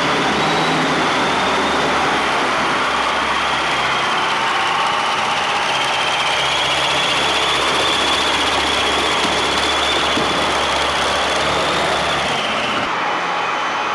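Modified pulling tractor's Allison aircraft engines running flat out under load during a pull, a loud, dense, steady engine noise that eases off near the end.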